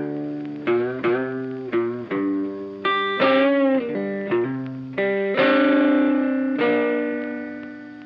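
Funky background music led by an electric guitar with effects: chords struck about once or twice a second, one long held chord about two-thirds of the way through.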